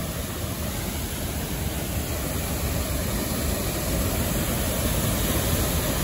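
Steady rush of falling water from a tall waterfall, an even noise that grows a little louder over the few seconds.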